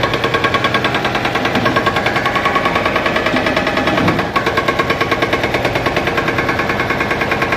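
An engine running with a fast, even knocking beat, about seven beats a second.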